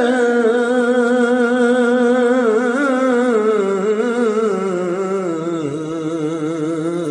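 A man singing a naat, one long drawn-out melodic line with a wavering vibrato that steps slowly downward in pitch and grows a little softer toward the end.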